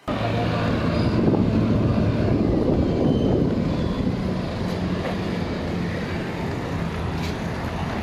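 City street traffic: vehicle engines running, with a steady low engine drone under a wash of road noise, loudest in the first few seconds.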